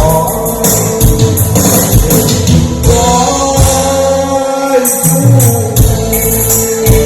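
Music: a sung melody over a backing track with a steady beat.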